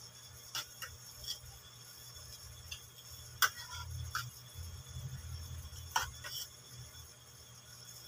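Spoon and fork clinking and scraping against a ceramic plate during a meal: a handful of sharp, separate clinks, the loudest about three and a half seconds in and again around six seconds.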